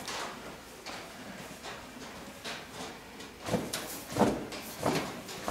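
Horse moving about a stall, her hooves scuffing and shuffling in the sandy bedding as she noses the ground, with a few louder scuffs in the second half.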